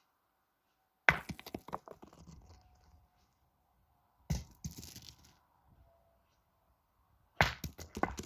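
Steel pétanque boules being shot in practice: three sharp clacks about three seconds apart, each followed by a quick rattle of smaller knocks that dies away.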